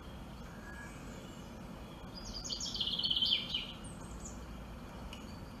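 Birdsong from a nature video playing on a television: a quick run of short chirps about two seconds in, over a steady low hiss.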